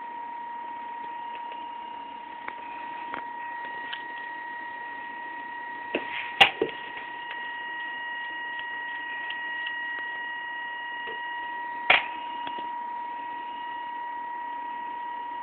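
Small brushed DC motor driven by a 555-timer PWM controller, giving a steady high whine at its audible switching frequency. A few sharp clicks stand out over it, the loudest about six and a half and twelve seconds in.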